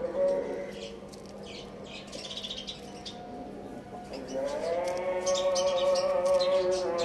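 Rooster crowing: a long, held crow rises in about four seconds in and carries on to the end, after a quieter stretch with scattered high chirps.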